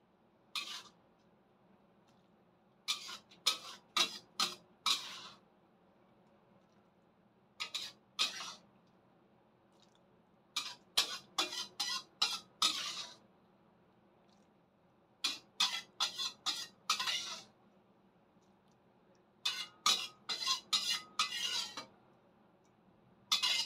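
A ladle scraping and clinking against a stainless steel pan while scooping food out into a bowl. The sound comes in about six short bursts of quick strokes, with pauses between them.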